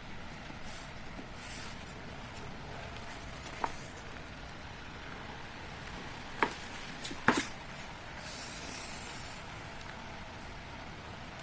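A few sharp mechanical clicks from a Tokyo Marui MK23 spring airsoft pistol over a steady background hiss: one click about four seconds in, then two louder ones about a second apart just past the middle.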